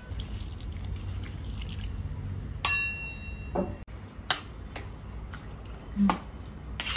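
Water poured into a metal pressure cooker full of rice and vegetables, then stirred with a metal spatula and ladle, with a few sharp metal clinks against the pot, one ringing about two and a half seconds in.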